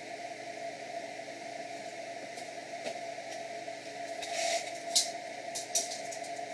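Steady motor hum, with scattered sharp clicks and knocks from about two seconds in as a metal square tube and a block are shifted on the drill press table and a tape measure is pulled out near the end.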